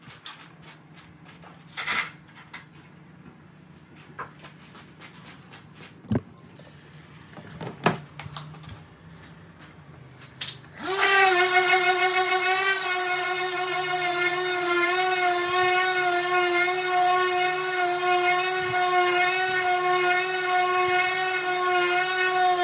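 A few scattered knocks and clicks, then about eleven seconds in an electric power sander switches on and runs at a steady high-pitched whine.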